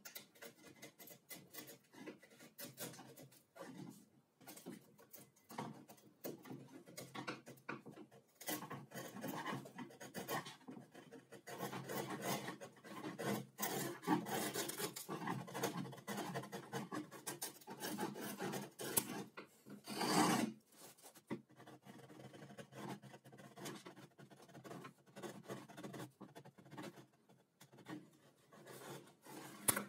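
A hand chisel scraping and paring wood out of a groove in a laminated board, in many short, irregular strokes, with one louder scrape about two-thirds of the way through.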